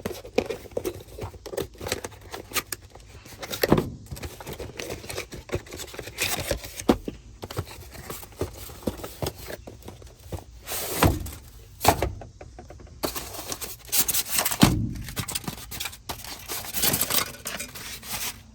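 Hands-on work on a truck's interior speaker mount: scattered knocks, clunks and scrapes of parts and tools being handled, with a few louder clunks about 4, 11, 12 and 14 seconds in.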